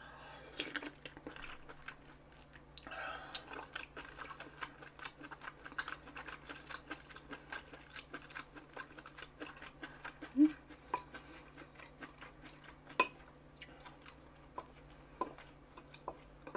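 A person chewing and eating gopchang hotpot close to the microphone: soft wet mouth sounds with many small irregular clicks, and a few sharper clicks, the loudest about ten and thirteen seconds in.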